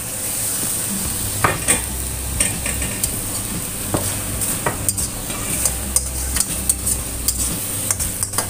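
Spatula stirring food in a stainless steel wok, with irregular scrapes and clicks against the pan over a steady sizzle as the tofu, tempeh and salted fish fry in a little sauce.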